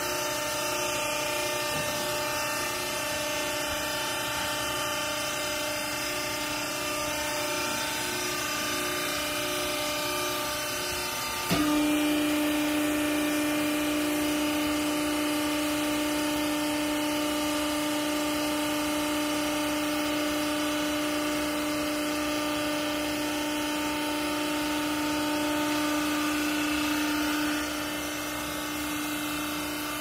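Vertical hydraulic clothing baler's electric motor and hydraulic pump running with a steady hum. About a third of the way in, a click is followed by a louder, steady pump tone as the ram presses down into the chamber; this eases off shortly before the end.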